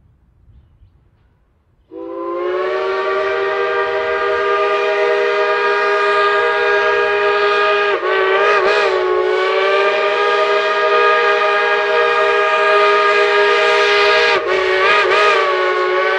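Shay geared steam locomotive's chime steam whistle blowing one long blast of about fourteen seconds, starting about two seconds in. It sounds a chord of several tones at once, wavering briefly twice, once midway and once near the end.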